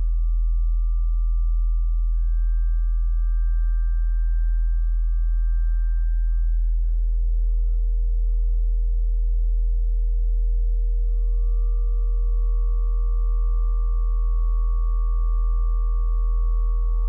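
Ambient electronic drone soundtrack: a deep steady hum under pure, sustained sine-like tones that fade in and out. A middle tone enters about a third of the way in, and a higher tone gives way to a slightly lower one about two-thirds through.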